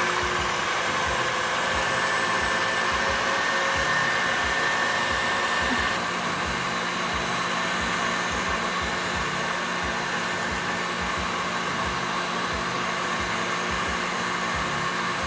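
KitchenAid tilt-head stand mixer running on high speed, its wire whisk whipping cream in a glass bowl: a steady motor whir that drops a little in level about six seconds in.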